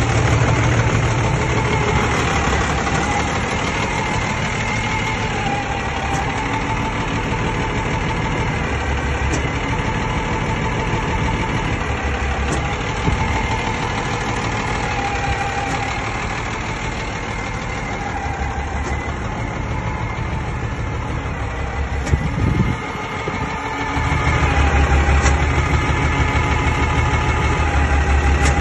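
Diesel engine of a Kalmar DCE 120-6 heavy forklift running steadily. About 23 seconds in, its deep rumble briefly falls away, then comes back louder.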